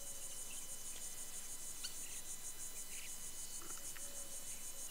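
Insects chirping in a high, rapid, even pulse that holds steady throughout.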